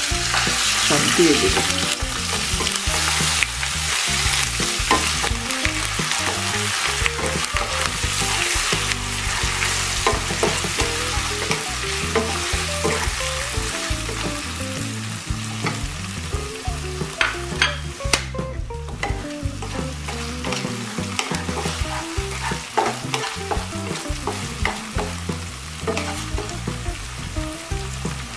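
Ground onion, ginger and garlic paste sizzling in hot oil in a non-stick pan while a wooden spatula stirs and scrapes it, with frequent clicks of the spatula on the pan. The sizzle is loudest at first, just after the paste goes into the oil, and slowly dies down.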